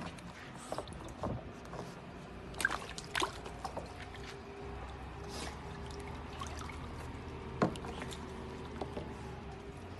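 Water splashing and trickling in a plastic tub as an otter moves about in it, with scattered sharp clicks, the loudest near the end.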